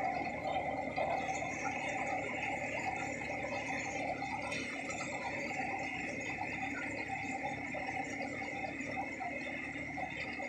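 Tractor-powered paddy thresher running steadily under load while paddy is fed in: a continuous mechanical hum with a steady high whine over it.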